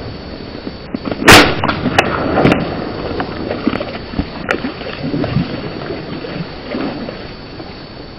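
A single loud shotgun shot a little over a second in, followed by a few fainter sharp knocks, over a steady rushing background noise.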